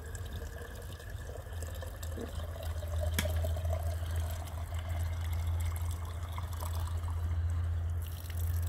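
Water running from the spout of an outdoor well pump into a plastic jug, with a note that rises as the jug fills. A steady low hum runs underneath.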